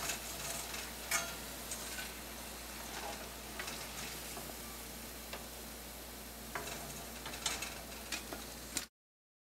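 Moong dal vadas (lentil fritters) frying in hot oil with a steady sizzle, with a few sharp clicks and scrapes of a metal slotted spoon against the wok as they are lifted out. The sound cuts off suddenly near the end.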